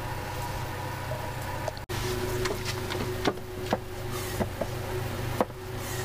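Hand vacuum oil-extractor pump being stroked to draw engine oil up through a tube down the dipstick, giving sharp clicks at uneven spacing over a steady low hum.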